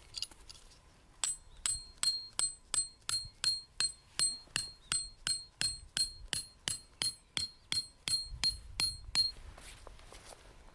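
Hammer driving a metal tent peg: about twenty evenly paced blows, roughly two and a half a second, each with a short high metallic ring, stopping near the end.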